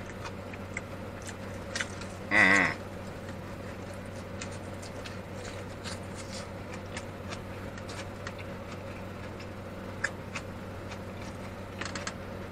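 Steady hum of an idling car with its air conditioning running, with faint clicks from eating a foil-wrapped burger. About two seconds in comes one short wavering vocal hum from a man's voice.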